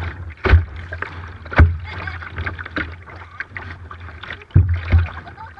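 Kayak paddles dipping and splashing in sea water beside a double sea kayak, with water washing against the hull. A few sharp, loud slaps stand out, about half a second in, near 1.6 seconds and twice close together near 5 seconds, over a steady low rumble.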